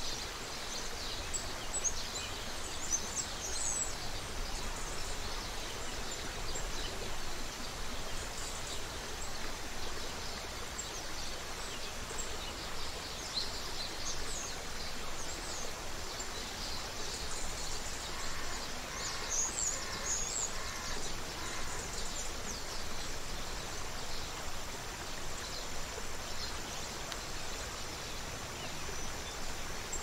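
Creek water running steadily, with small birds chirping high above it throughout. About two-thirds of the way in, a short series of lower, evenly repeated calls joins in.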